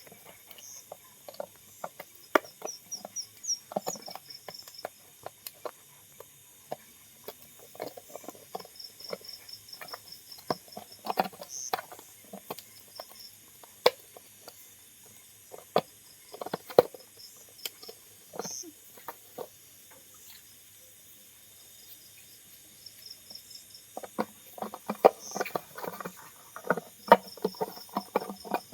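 Scattered clicks and taps, irregular and denser near the end, with an insect chirping in short high trills behind them.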